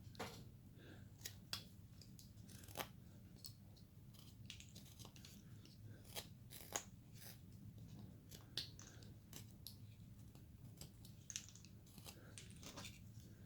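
Faint, irregular clicks and scrapes of a hand-carving blade taking small paring cuts in basswood, cleaning up the carved ball.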